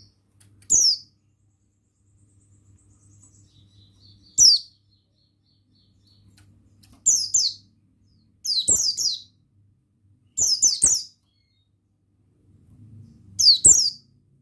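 Pleci buxtoni white-eye calling: short, high chirps that fall quickly in pitch, in six loud groups a few seconds apart, several of them two or three chirps in quick succession. A faint low hum runs beneath.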